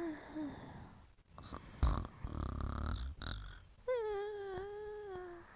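Dog whimpering in its sleep while dreaming: brief whimpers at first, a noisy breath about two seconds in, then one long whine that dips slightly in pitch and holds for well over a second.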